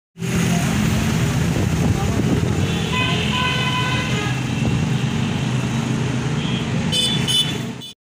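Street traffic with a vehicle engine running steadily. A vehicle horn honks in a run of short toots from about three to four and a half seconds in, and brief high tones sound again near the end.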